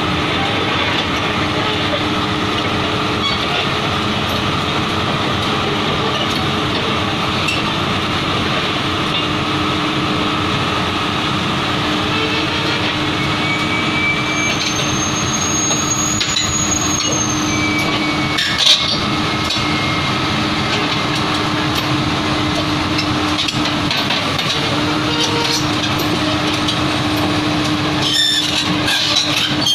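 Komatsu PC200 crawler excavator's diesel engine running steadily as it crawls up the ramps onto a low-loader trailer, its steel tracks clanking, with one sharp clank about two-thirds of the way through and more clattering near the end.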